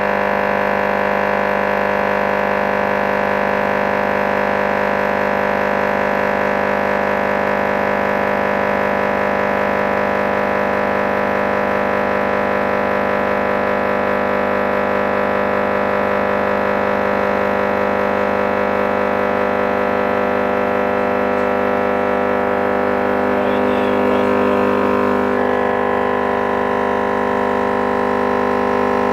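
A 10-inch car subwoofer is driven with a steady test tone at about twice its rated RMS power, around 1,200 W. It makes a loud, steady, harsh drone with many overtones, and its tone changes about 25 seconds in.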